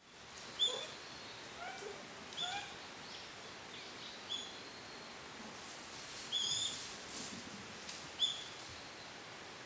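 Forest ambience: short, high bird chirps come every second or so over a steady faint hiss.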